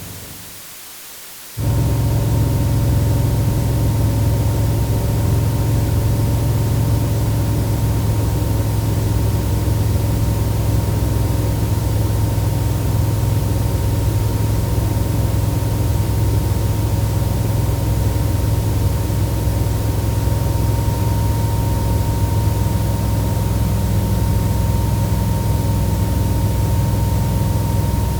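Aircraft noise: a steady low drone with a thin, unchanging whine above it and a hiss. It starts about a second and a half in and holds level, with no rise or fall.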